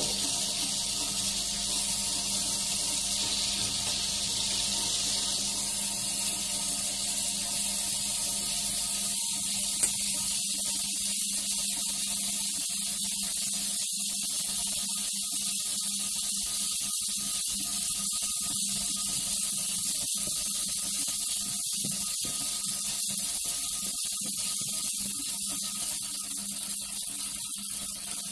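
Tabletop stone wet grinder running: the stone roller turns in the spinning drum, grinding soaked rice and musumusukkai leaves into dosa batter. A steady hiss over a constant low motor hum.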